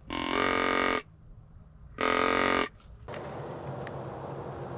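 A hand-held deer call blown three times. Each call is a loud, even-pitched note just under a second long, with a short gap between them. About three seconds in it gives way to a steady, quieter background hiss.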